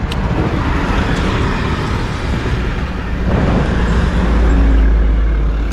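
Roadside traffic noise, with vehicles passing on the road; a heavier low rumble swells up about four seconds in as a vehicle goes by.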